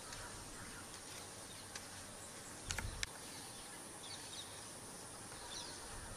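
Quiet wild-park ambience: a steady, high insect drone with a few faint bird chirps, and two short knocks about three seconds in.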